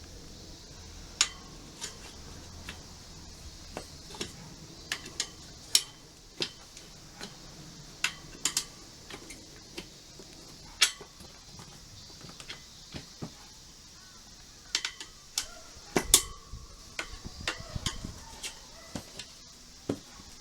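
Metal tools clinking and tapping against a motorcycle wheel during front tyre fitting: irregular sharp clicks, some with a short metallic ring, loudest in a cluster about three-quarters of the way through.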